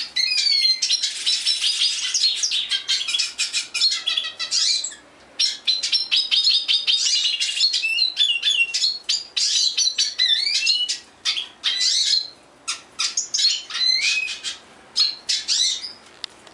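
Caged songbirds singing: a long run of varied whistles, rising and falling slides and rapid chirps, broken by a few short pauses.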